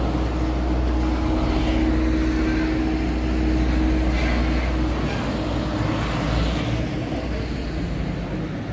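Street traffic: car and van engines running and passing, a steady low rumble with a held engine hum that fades about halfway through.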